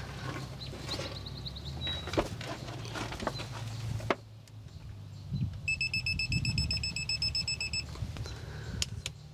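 Digital torque wrench beeping as a driveshaft bolt is tightened: a few short rising beeps about a second in, then a rapid, evenly spaced string of beeps a little past halfway that signals the set torque of 125 ft-lb has been reached. Metal clicks and knocks from the wrench and bolt sound in between.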